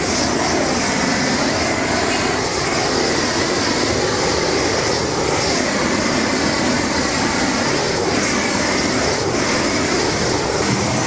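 Handheld gas blowtorch burning with a loud, steady rush of flame as it is played over the skin of whole spit-roasted pigs to crisp it.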